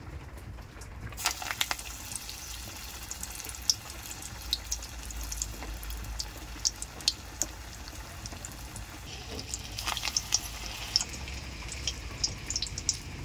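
Soybean kofta balls deep-frying in hot oil in a kadhai: a steady sizzle with frequent sharp crackling pops, starting about a second in, with a louder burst of sizzling about ten seconds in.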